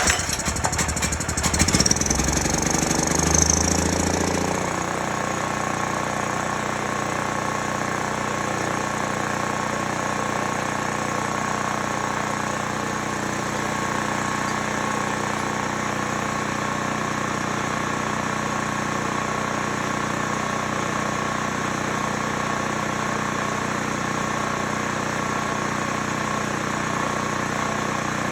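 Small portable generator engine starting up, running loud and uneven for about four seconds, then settling into a steady, even run. It no longer surges, now that the new carburettor's idle mixture screw is set three turns out.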